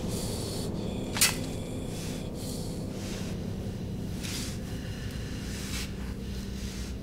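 A low, steady drone runs under soft breathy hisses that recur about once a second. There is one sharp click about a second in.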